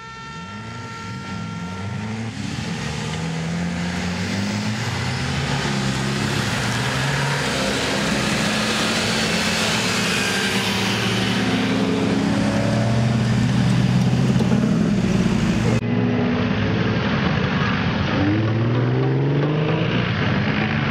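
Several off-road 4x4 truck engines running and revving, their pitch rising and falling as the trucks drive past on a dirt track. The sound changes abruptly about sixteen seconds in.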